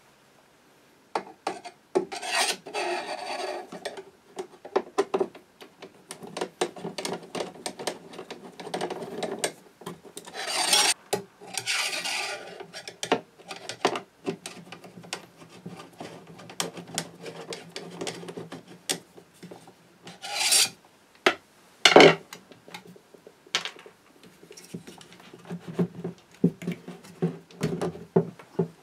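A screwdriver scraping and rasping as it turns out the mounting screws of a Fanuc 9-inch CRT monitor's metal chassis, with many small clicks and metal clinks as the screws and frame are handled. One sharp knock comes about three-quarters of the way through.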